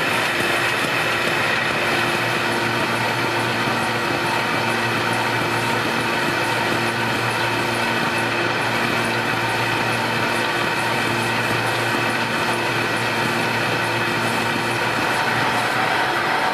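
Kirk Rudy KR219RSDF plow-fold system running steadily: a constant mechanical hum with a few steady tones and an even, rhythmic ticking as the machine feeds and folds paper.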